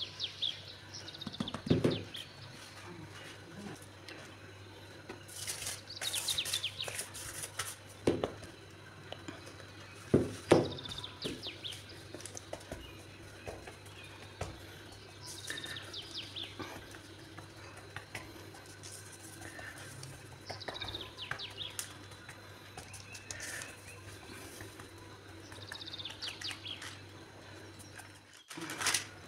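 Hands pressing and patting pizza dough flat on floured parchment paper, with a few soft knocks on the counter, the loudest about two seconds in and about ten seconds in. Birds chirp in the background in short falling calls every few seconds.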